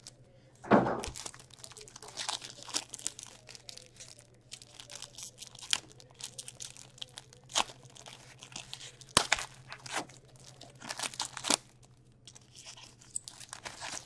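Foil wrapper of an Upper Deck SP Game Used hockey card pack crinkling and tearing as it is ripped open by hand, with scattered sharp crackles and a thump about a second in.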